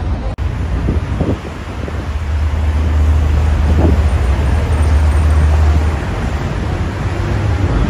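Heavy road traffic: diesel lorries and cars running, with a low engine drone that builds about two seconds in and eases off near six seconds.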